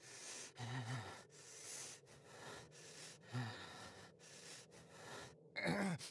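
An animated character's heavy, strained breathing: a rapid series of short, gasping breaths and grunts of effort, with a groan near the end.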